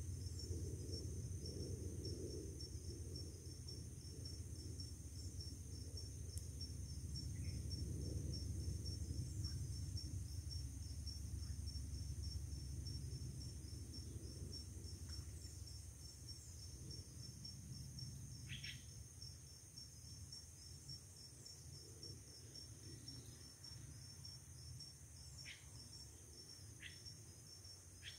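Insects trilling steadily in a fast, even, high-pitched pulse over a low rumble that fades through the second half. A few brief, separate high chirps break in in the second half.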